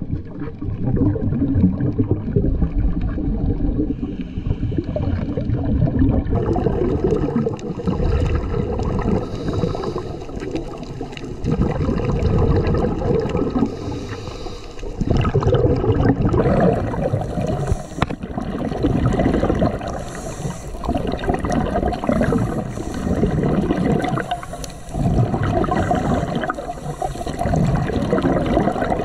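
Water rushing and gurgling against an underwater camera as it moves through the sea, swelling and easing in surges every few seconds.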